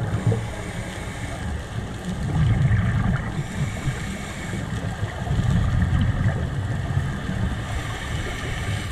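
Muffled low rumble of water heard through an underwater camera housing, swelling and easing off three times.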